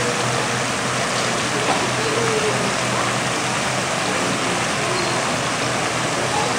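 Indoor fountain's many arcing water jets splashing down onto the wet basin, a steady, even rush of falling water.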